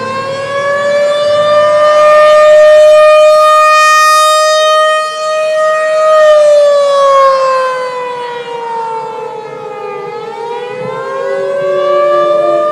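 Civil defense siren wailing. It winds up to a steady pitch and holds it for several seconds, slides down after about six seconds, then winds up again near the end.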